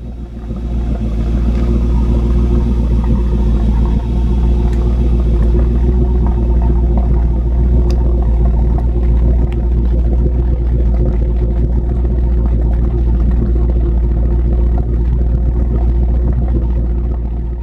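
Boat's inboard engine running steadily, heard right at its wet exhaust outlet at the waterline: a loud, deep, even rumble that fades in over about the first second.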